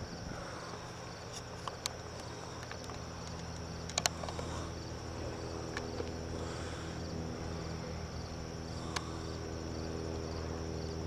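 Crickets chirping steadily in an evenly repeating rhythm, over a steady low hum. A few sharp clicks stand out, the loudest about four seconds in.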